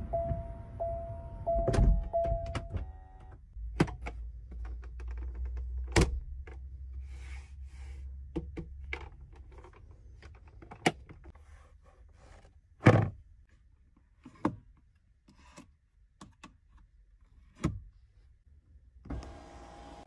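In a Buick GL8 Avenir minivan, a warning chime beeps evenly and stops when a door shuts with a thunk about two seconds in. Clicks and knocks from handling the seats and trim follow, with a loud thunk around the middle. Near the end an electric motor starts with a steady hum as the roof sunshade opens.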